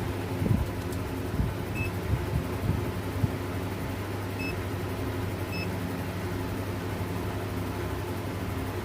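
A steady mechanical hum runs throughout. A few knocks come in the first three seconds or so, and there are three short high beeps.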